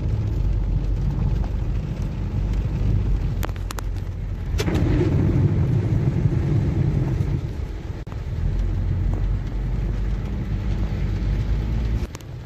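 Heavy rain on a moving car, heard from inside the cabin. A steady low rumble from the car driving through standing water runs under the rain on the roof and windshield. There are a few sharp knocks about three and a half to four and a half seconds in, and the rumble swells for a few seconds after them.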